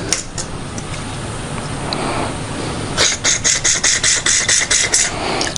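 A torch tip cleaner worked back and forth in a Honda carburetor's brass main jet. After a few seconds of low steady hiss, quick, even scraping strokes come at about four a second.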